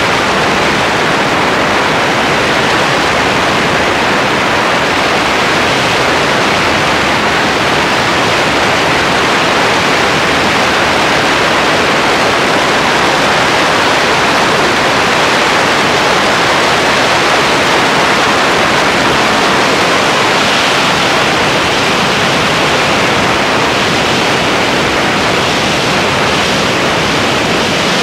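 Loud, steady rush of airflow over the microphone of a camera mounted on a biplane's wing in flight: a continuous even hiss with no distinct engine note.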